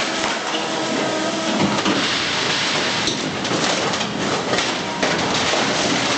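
Brokk B90 demolition robot running its hydraulics as its sorting grapple tears down ceiling material. Debris clatters and crashes, densest from about halfway through.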